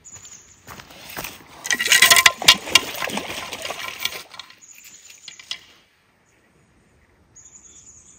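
Hooked coastal cutthroat trout thrashing and splashing at the water's surface as it is brought to the net: a burst of splashing starting about a second in and lasting about three seconds, loudest near the start.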